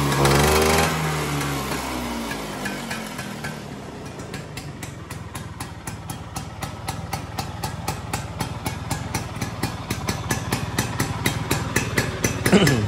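1984 Vespa PX Exclusive's single-cylinder two-stroke engine. A rev dies away in the first second or so, then it settles into an idle with an even, regular pulse. Near the end a short sound sweeps quickly down in pitch.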